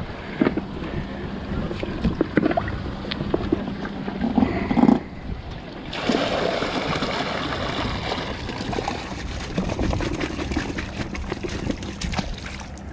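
Mesh fish weigh bag rustling and knocking as it is handled, then from about six seconds in a steady splashing as the bass are tipped out of the bag and released into the lake, water pouring from the bag.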